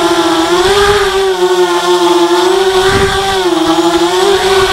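ZMR 250 racing quadcopter's brushless motors (RCTimer 2300kv) spinning 5x3 propellers, heard from its onboard camera: a steady, loud whine whose pitch wavers slightly up and down as the throttle changes. There is a brief low rush of air about three seconds in.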